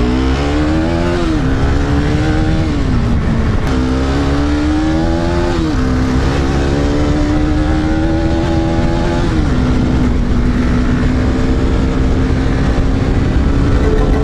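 Motorcycle engine pulling away and accelerating through the gears: its pitch climbs and drops back four times as it shifts up, then holds steady at a cruising speed for the last few seconds, over a heavy low rumble.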